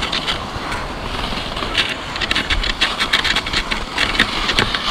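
Cross-country skis sliding and scraping in a groomed classic track, with short sharp crunches and clicks from skis and pole plants in the snow, over a steady low rumble.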